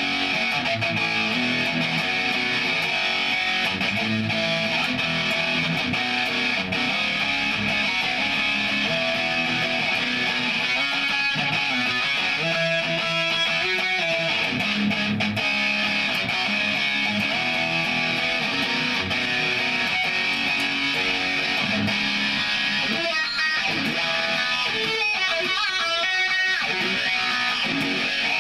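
Ibanez Jem 70V electric guitar with DiMarzio pickups, played through a Line 6 POD HD500 heavy patch modelling Greenback speakers and a Laney LX120R Twin combo amp. Continuous heavy, distorted riffs and single-note lines.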